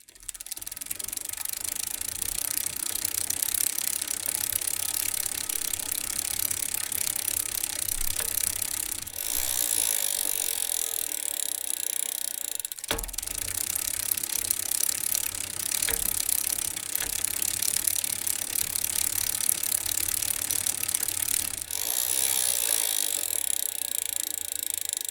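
Bicycle freewheel ratchet clicking rapidly and steadily as the rear wheel spins, with light chain and gear noise. There is a sharp knock about halfway through and another a few seconds later.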